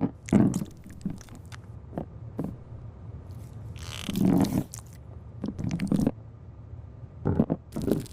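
Small parts being handled up close during a repair: irregular clicks, knocks and scrapes, with a short hiss about four seconds in.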